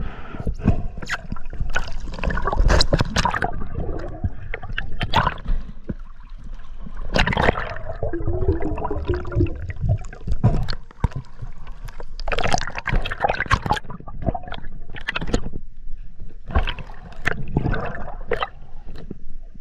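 Underwater sound heard through an action camera's waterproof housing: gurgling water and bubbles, with uneven rushes and short knocks as a freediver kicks and hauls in the float line.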